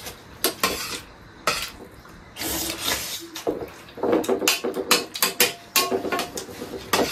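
A metal spoon clinking and scraping against steel plates and bowls while eating: irregular sharp clicks, a short scrape, and a few brief metallic rings.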